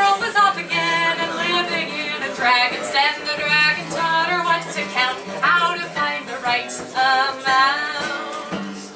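A woman singing a wordless melodic passage between verses of a folk song, her voice sliding between held notes over a steady low tone.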